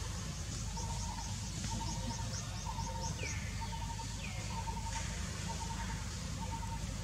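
Birds calling outdoors: a short warbling note repeated about once a second, a quick run of high chirps in the first half, and a couple of falling whistles, over a steady low background rumble.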